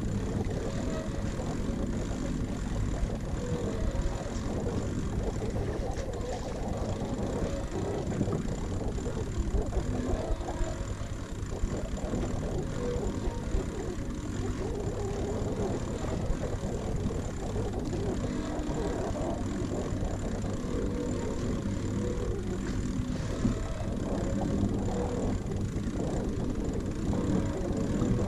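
Steady low rumble of wind buffeting an action camera's microphone on a sailing catamaran underway.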